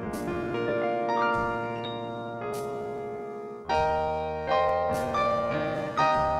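Background piano music, slow and gentle, with single notes left to ring and fade. About two-thirds of the way through it grows louder, with chords struck roughly every second over deep bass notes.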